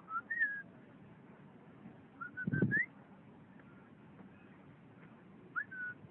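Black swans calling: short, soft whistled notes, some rising, in three small groups. A louder low bump sounds about two and a half seconds in.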